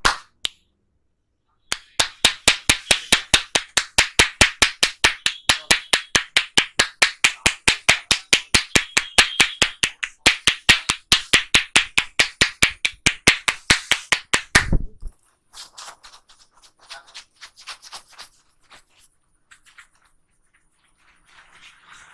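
A barber's hands tapping on a client's head during an Indian head massage: sharp, evenly spaced claps at about four or five a second that stop abruptly about fifteen seconds in, followed by faint scattered handling sounds.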